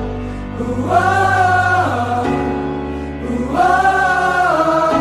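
Song intro: wordless, choir-like voices holding long notes over sustained low chords, with the harmony changing a little over two seconds in.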